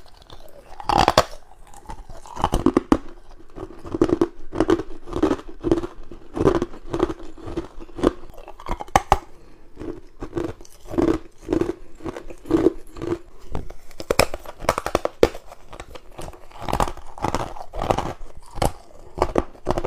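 Frost-coated ice cubes crunching as they are bitten and chewed close to the microphone. The crunches come irregularly at first, then settle into a steady chewing rhythm of about two a second through the middle stretch.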